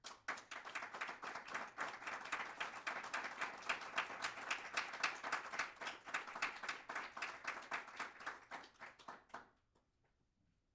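Audience applauding, the claps thinning out and stopping about nine and a half seconds in.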